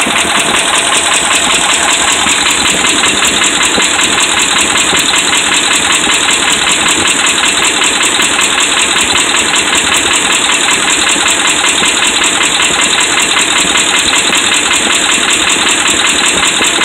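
Dodge Ram 5.7 Hemi V8 idling, heard close up in the engine bay, with a fast, even knock from inside the engine: the sign of worn connecting-rod and crankshaft bearings.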